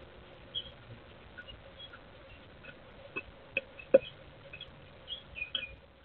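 Red-bellied woodpecker's bill pecking and picking at sunflower seeds in a feeder tray: a few scattered sharp taps, the loudest about four seconds in. Faint chirps of other birds in the background.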